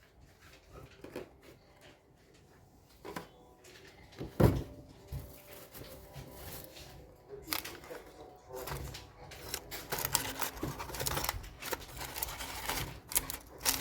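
Handling sounds while fish is turned in an air fryer basket: scattered light knocks, one sharp loud knock about four and a half seconds in, then a stretch of rustling and scraping near the end.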